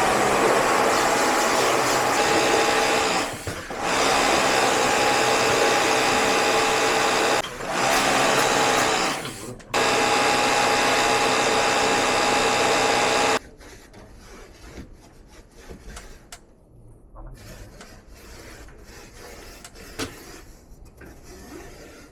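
A small electric motor running loud and steady with a wide hiss, in four stretches of a few seconds with short breaks between, then cutting off suddenly about thirteen seconds in. Light clicks and knocks of handling equipment follow.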